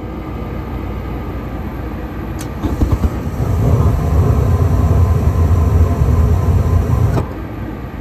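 Trane gas furnace start-up: the draft inducer motor runs steadily, a click comes about two and a half seconds in, then the gas burners light with a loud low rumble that lasts about four seconds and cuts off suddenly near the end as the flames go out. The burners are not staying lit even with the cleaned flame sensor back in.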